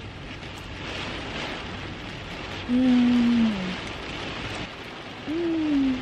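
Steady rain pattering on the car, with a woman's closed-mouth "mmm" twice, each note sliding down in pitch, about three seconds in and near the end: sounds of enjoyment while eating.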